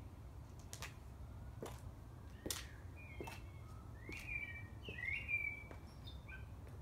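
White high-heeled shoes clicking on patio paving as she walks, about one step a second. A small bird chirps a few times in the middle, the loudest sound, over a steady low rumble.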